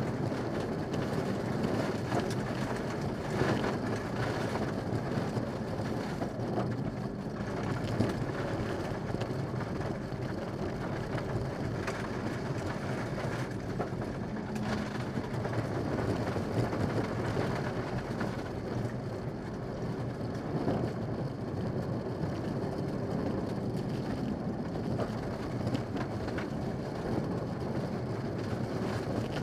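Cabin of a Mitsubishi Lancer Evolution VI rally car at speed on a gravel stage: the turbocharged four-cylinder engine running steadily under load, with tyre and gravel noise through the shell.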